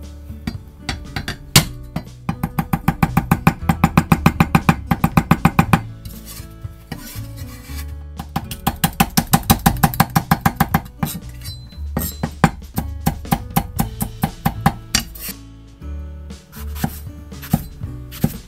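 Rapid knife chopping on a cutting board, about eight strokes a second, in several runs separated by short pauses.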